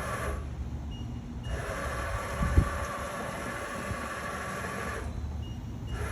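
Y-axis drive of a TRAK FHM7 CNC bed mill whining as the table traverses at about 150 inches per minute, stopping and starting: a brief run at the start, a longer run from about a second and a half in to about five seconds, and another start near the end. A single dull knock about two and a half seconds in.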